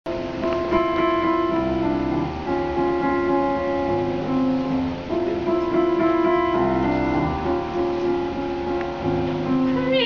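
Piano playing a song's introduction: flowing held notes in a phrase that repeats every couple of seconds.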